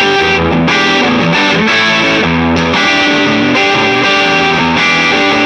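2011 Gibson ES-335 semi-hollow electric guitar with Burstbucker humbuckers, played through distortion in a rock and roll riff of chords and notes that change about every half second.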